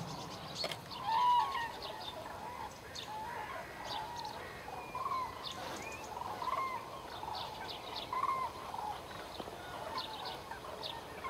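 A flock of common cranes calling, with short calls following one another about every second.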